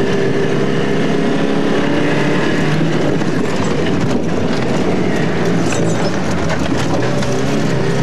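Alfa Romeo Alfasud's flat-four engine running hard as the car is driven over rough sandy ground, heard from inside the cabin, with a dense clatter of knocks from the body and suspension.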